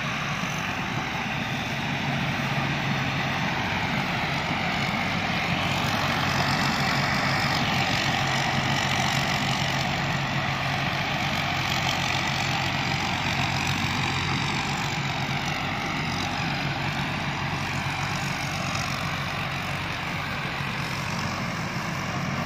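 Rice combine harvester's diesel engine and machinery running steadily with a low hum, growing a little louder about six seconds in and easing off again toward the end.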